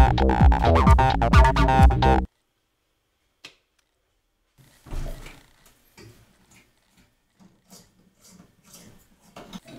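Electronic music with a heavy beat cuts off abruptly about two seconds in. After a pause with a single click, faint scattered knocks and rustles of handling follow.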